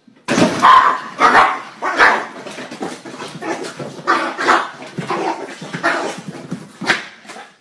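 A small dog barking over and over, about a dozen barks at an uneven pace of one or two a second.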